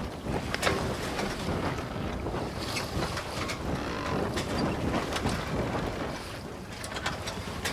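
Sailboat under way: a steady rush of wind and water along the hull, with low wind buffeting and scattered short creaks, flaps and splashes.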